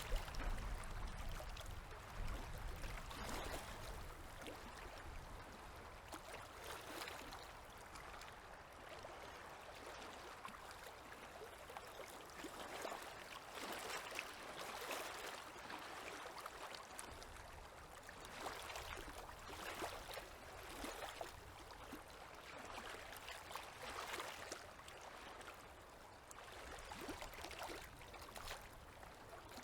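Small river waves lapping gently at the shore, rising and falling in irregular swells every few seconds, with a low rumble near the start.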